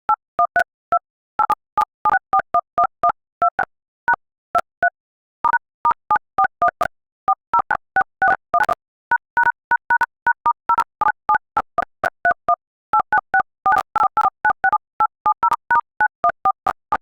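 Smartphone alarm tone made of short two-note telephone-keypad beeps (DTMF tones), played in quick, uneven runs with brief pauses.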